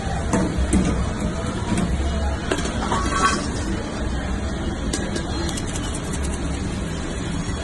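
Steady low kitchen rumble with a few metal clinks and rattles as a wire fry basket is tipped against a stainless steel bowl and the fries slide in.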